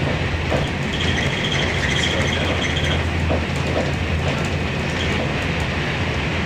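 Passenger train running, heard from inside the carriage: a steady rumble of wheels on the track, with a faint high whine between about one and three seconds in.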